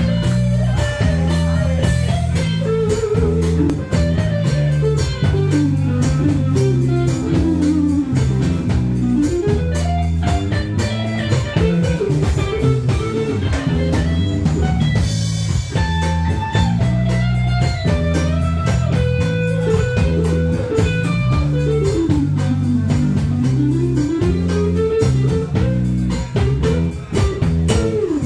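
Live band playing: electric guitar leading a wandering melody over a drum kit keeping a steady beat and a low bass line.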